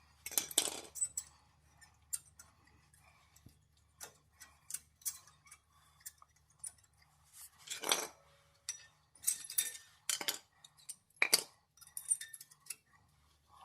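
Front brake pads of a Mitsubishi Pajero being wiggled loose and slid out of the caliper bracket, then handled: irregular metallic clicks, taps and clinks, with a cluster of sharper knocks in the second half.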